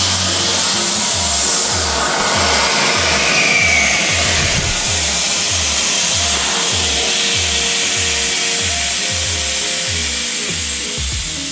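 Background music with a steady, deep bass-drum beat.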